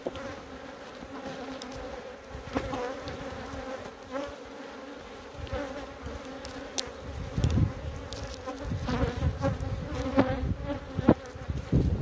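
Honey bees buzzing around an open hive in a steady hum, with a few sharp clicks and knocks.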